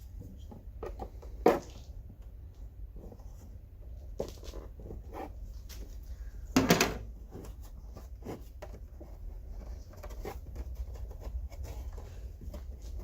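Plastic trim pieces on a car's rear being worked loose with a pry tool: scattered small clicks and knocks, with two sharper knocks, about a second and a half in and near seven seconds, over a low steady hum.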